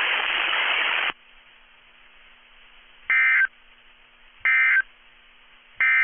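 Weather radio broadcast audio: a burst of radio static that cuts off about a second in, then faint hiss and three short electronic tone beeps about 1.4 seconds apart, like touch-tone dialing tones.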